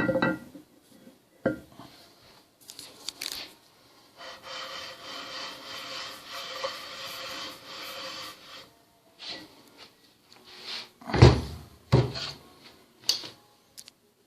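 Hand-scraping and rubbing on a machine tool's cast-iron guideways. Short scraper strokes come first, then several seconds of steady metal-on-metal rubbing with a faint ring. Two heavy knocks follow about eleven and twelve seconds in.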